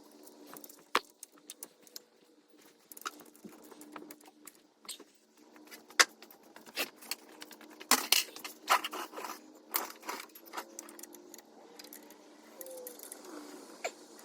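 Metal hand tools and parts clinking and clanking: a run of irregular sharp clicks, with one louder knock around six seconds in and the busiest clatter a couple of seconds later.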